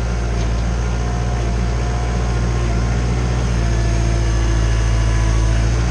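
Kubota L3940 tractor's diesel engine running steadily as the loader works a sand pile.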